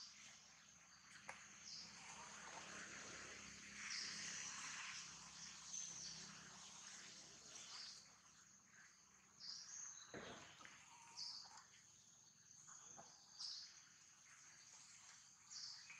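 Faint outdoor ambience: a steady high insect drone, with short high chirps repeating every second or two.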